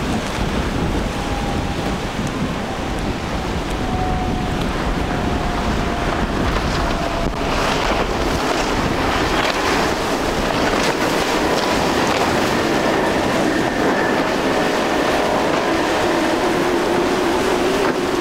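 Twin Yamaha 200 hp outboard motors running at speed through rough water, a faint engine whine that falls slowly in pitch as the boat goes by. Wind buffeting on the microphone and the hiss of wake and surf are as loud as the engines.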